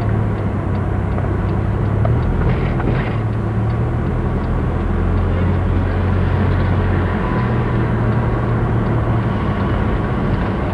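Vehicle engine and road noise heard from inside a moving vehicle: a steady low engine hum over constant rumble, the engine note rising slightly about seven seconds in.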